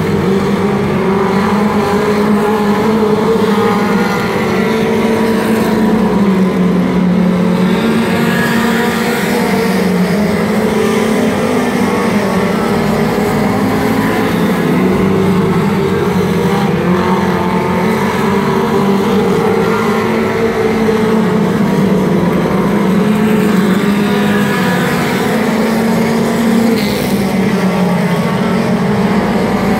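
Several race car engines running laps on a dirt oval, their pitch rising and falling as the cars throttle down into the turns and back up on the straights.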